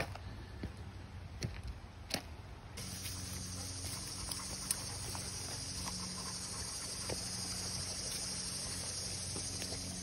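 Footsteps on the loose flat stones of a dry creek bed, with a few sharp clacks of stone on stone. About three seconds in, the sound changes abruptly to a steady high hiss, with occasional light steps on a dirt trail.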